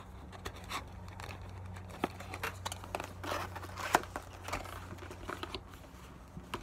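Crinkling and tearing of packaging as a Pokémon card booster box and its foil packs are opened: a run of irregular crackles and rips over a low steady hum.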